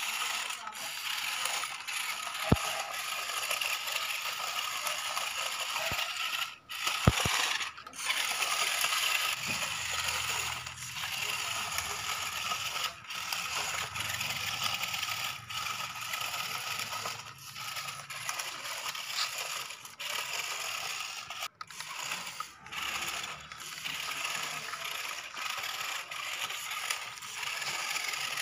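Electric motors and gearboxes of a toy 4WD RC rock crawler whirring and grinding as it crawls over rocks and dirt, cutting out briefly every few seconds between bursts of throttle, with a couple of sharp knocks from the truck bumping over stones.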